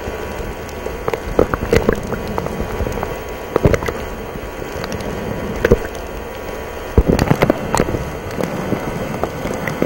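Underwater sound picked up by a submerged camera: a steady muffled rush of water with scattered sharp pops and clicks, the loudest about seven seconds in.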